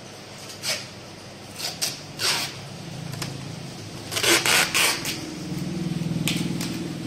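Cardboard box being packed by hand: short scratchy rustles and scrapes of cardboard flaps, with packing tape pulled off its roll in quick strips about four seconds in. A low steady hum joins in about five seconds in.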